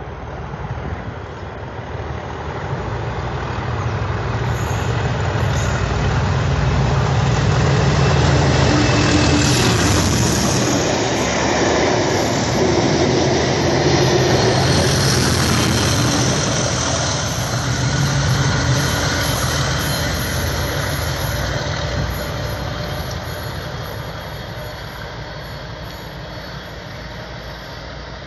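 A pair of Class 37 diesel locomotives with test coaches between them passing at speed: the English Electric V12 engine note builds as the leading loco approaches, the wheels and coaches rush past, and a second engine note follows with the rear loco. The sound then fades away.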